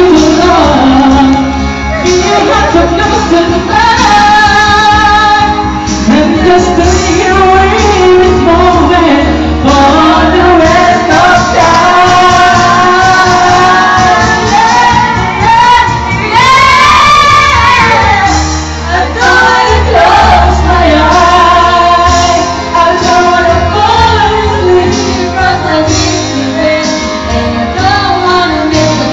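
A song with a woman singing over instrumental backing with a strong bass line.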